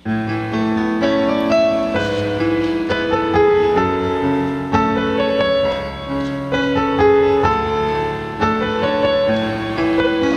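Instrumental intro of a karaoke backing track: keyboard playing slow, held piano chords.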